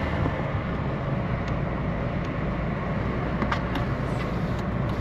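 Steady engine and road rumble of a moving vehicle, with a few faint clicks about three and a half seconds in.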